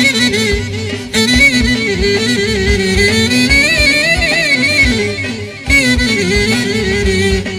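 Live band playing an instrumental passage of Greek folk dance music. A clarinet leads with a wavering, ornamented melody over a steady drum beat.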